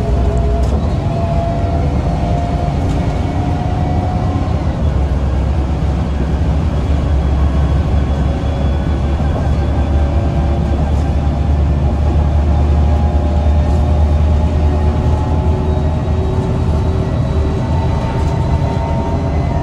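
Cabin sound of an Irisbus Citelis 18 GNV articulated natural-gas bus under way: a steady low rumble from its Iveco Cursor 8 engine and the road, with whining tones that rise slowly in pitch as the bus picks up speed.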